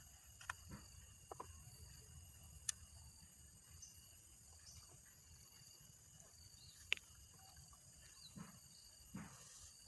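Faint, steady chirring of insects over a low rumble, with a few sharp clicks and light knocks, two of them louder, about three seconds in and about seven seconds in.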